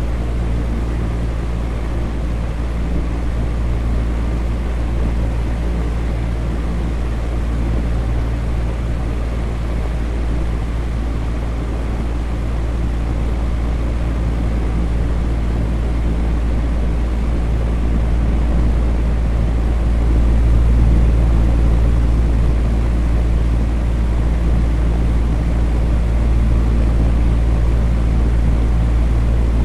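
Electric fan running steadily: a constant whoosh of moving air with a deep low hum, with no change in speed.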